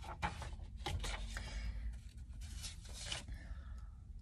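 Sheets of printer paper rustling and sliding as they are handled, in a run of short scratchy swishes that die away about three seconds in.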